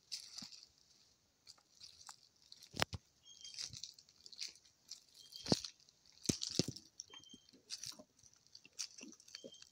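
Irregular crunching and rustling with sharp clicks, the loudest knocks a little under 3 s and about 5.5 s in.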